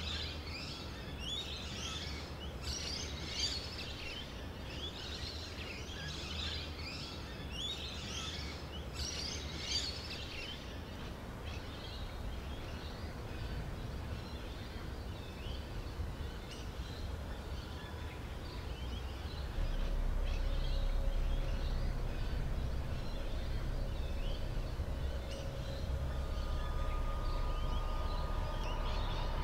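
Birds calling in quick repeated chirps over a steady outdoor background for the first third, then fading. About two-thirds of the way through a low steady rumble comes in, and near the end faint steady tones are added.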